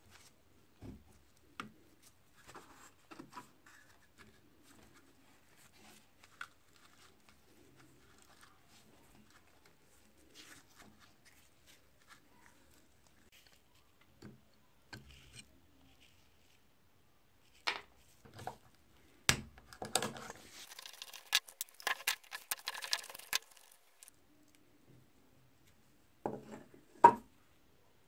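Hand work on small metal parts: scattered light clicks and scrapes, then a busy spell of rapid clicking and rattling a little past the middle, and two sharp knocks near the end, the second the loudest.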